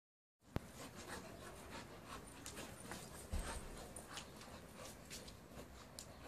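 A pit bull and a rottweiler play-wrestling on grass: soft panting and scuffling, with a sharp click about half a second in and a low thump a little past three seconds.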